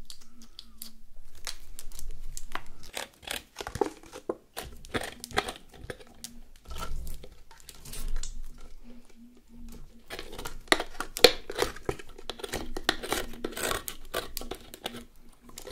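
Thick green translucent slime being prodded with long acrylic nails in its clear plastic tub, then tipped and pulled out onto a table: irregular sticky clicks and crackles as it tears away from the plastic, thickest near the end.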